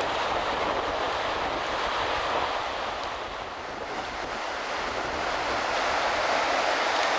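Surf washing against a rocky shore, a steady rushing noise mixed with wind.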